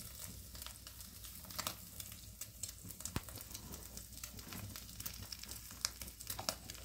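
Food frying in a pan over a small wood fire: a faint sizzle with scattered sharp pops and crackles.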